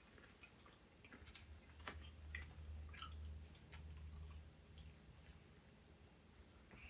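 Faint chewing of food, with scattered small wet mouth clicks and smacks and a low rumble through the middle.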